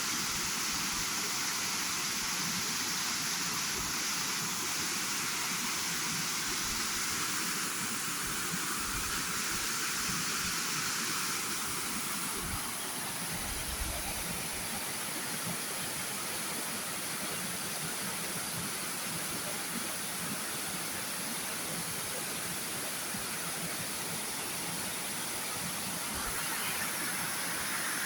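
Waterfall running: a steady rush of falling water.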